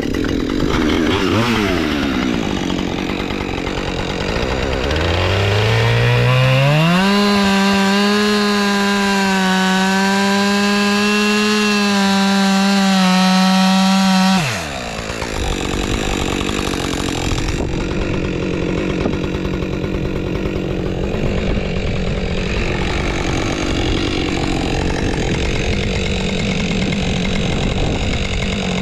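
Husqvarna two-stroke chainsaw carving into a log. About five seconds in the engine revs up and holds a high, steady pitch, then drops abruptly about halfway and runs on rougher and noisier to the end.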